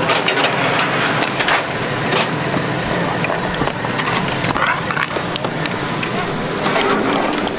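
Ski chairlift running: a steady mechanical hum and rush, with several sharp clicks and knocks.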